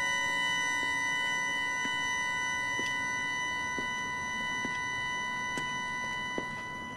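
Film score drone: several high tones held steady and unchanging, with faint ticks about once a second. It cuts off suddenly at the end.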